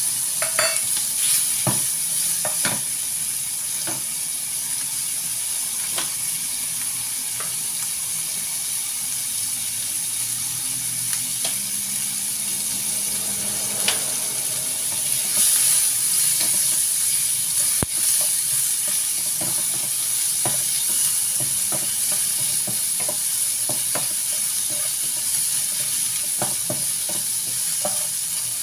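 Shrimp, garlic, carrot, sausage and mushroom pieces sizzling in oil in a nonstick frying pan as they are stir-fried, with a wooden spatula scraping and knocking against the pan now and then, more often near the end.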